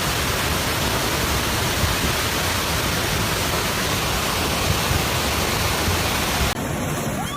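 Steady rushing of fast-flowing river floodwater, an even unbroken noise; about six and a half seconds in, its hiss thins out.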